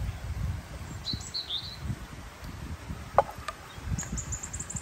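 Small birds chirping, with a fast high trill near the end, over a low rumble. About three seconds in comes a single sharp knock, likely the wooden ladle striking the metal pot or bowl as stew is ladled out.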